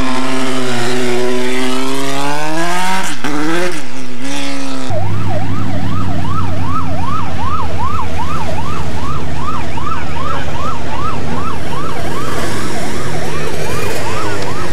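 Rally car engine revving up and down through the gears. About five seconds in the sound changes abruptly to a vehicle siren sweeping upward over and over, about two and a half sweeps a second, over a steadily running engine.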